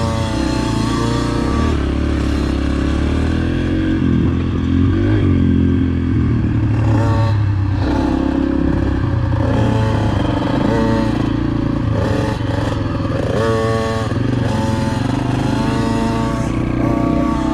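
Motocross dirt bike engine running hard round a track, its pitch climbing and dropping again and again as the rider works the throttle and shifts, with a steady lower engine drone underneath.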